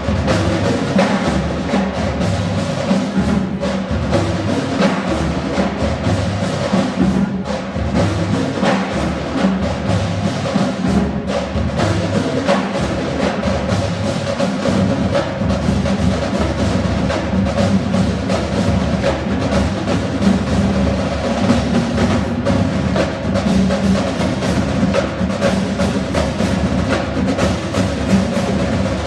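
Marching band percussion section drumming without a break: rapid, dense drum strokes with wood-block-like clicks.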